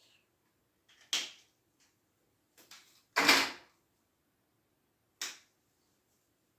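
Dry-erase marker drawing short strokes on a whiteboard: four brief scratchy strokes, the longest and loudest about three seconds in.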